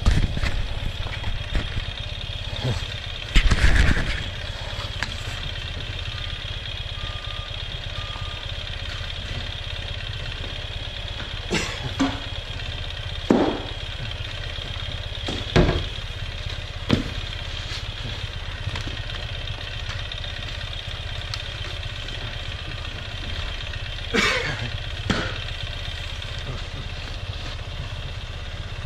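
Ural sidecar motorcycle's boxer-twin engine idling steadily at a distance, with a few sharp knocks and rustles close to the microphone.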